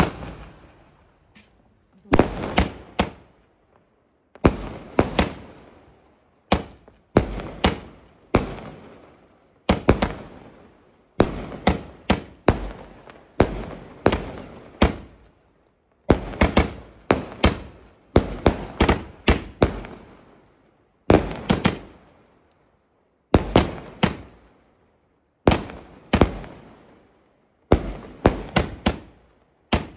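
A 240-shot aerial firework cake firing in repeated volleys. Clusters of sharp bangs from the launches and the bursts overhead come every second or two, and each dies away before the next.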